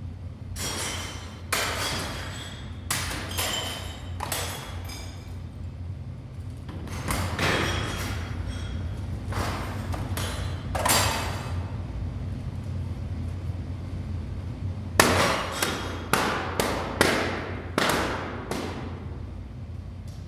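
Irregular knocks and strikes on hard objects, some ringing briefly with clear tones, ending in a quick run of about five sharp hits near the end, over a steady low hum.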